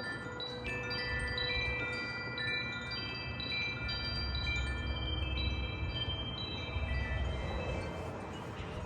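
Several metal wind chimes ringing in the wind, with many overlapping tones struck again and again, thinning out over the last couple of seconds. A low rumble runs underneath.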